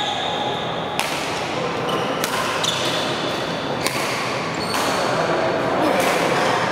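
Badminton rally: rackets sharply striking a shuttlecock about five times, a second or so apart, with sneakers squeaking on the court mat between hits. The sounds ring with the echo of a large hall.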